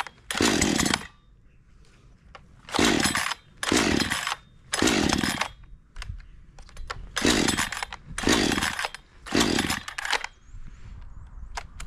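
Parkside PBKS 53 A2 53 cc two-stroke chainsaw being pull-started: seven hard pulls on the recoil starter, one and then two runs of three, each a short cranking burst that drops in pitch as the pull ends. The engine, choked and primed for its first cold start, never catches and keeps refusing to start.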